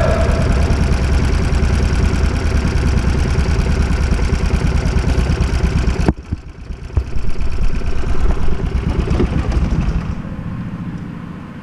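Small go-kart engine running hard close to the microphone, with a strong low buzz. About halfway through the sound cuts off sharply, then comes back lower and uneven, and it drops off further near the end.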